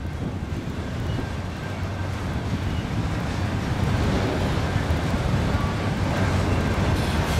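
Freight train rolling past: a steady rumble of wheels on the rails, slowly growing a little louder, with wind buffeting the microphone.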